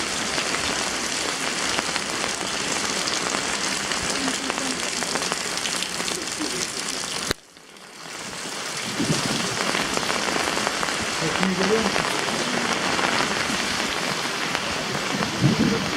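Steady rain falling, a dense even hiss, with faint voices behind it. The sound cuts out abruptly about seven seconds in and fades back up over the next second.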